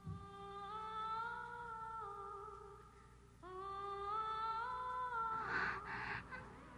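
Cartoon soundtrack music: a wordless, humming-like melody of long held notes that step slowly in pitch, in two phrases with a short drop in level about three seconds in. A few short breathy hisses sound over it near the end.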